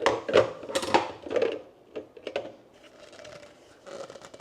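Hard plastic parts of a Ninja Creami Swirl knocking and clicking as a lid is tried on a container: several sharp clacks in the first two seconds or so, then fainter handling noise.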